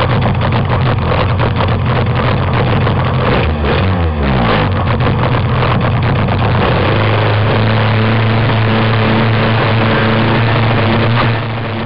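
Two-stroke petrol BZM engine of an RC race boat running hard, its pitch dropping briefly about four seconds in and then holding a steady high note.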